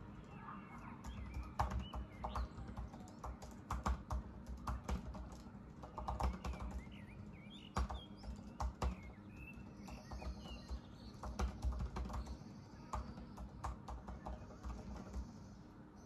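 Typing on a Mac laptop keyboard: irregular runs of key clicks with short pauses. Birds chirp faintly in the background now and then.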